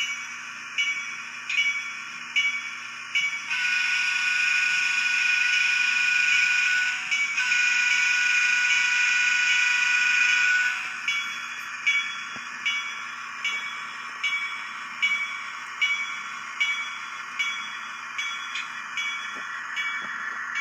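MRC 16-bit sound decoder in a Bachmann GP38-2 model diesel locomotive playing its locomotive bell, a ring about every 0.8 s, over a steady engine sound from the baffle speaker. About three and a half seconds in, the horn sounds two long blasts of about three and a half seconds each, then the bell carries on alone.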